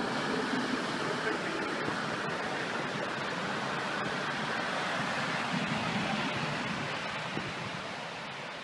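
Steady rushing noise of surf and wind on the microphone, easing off near the end.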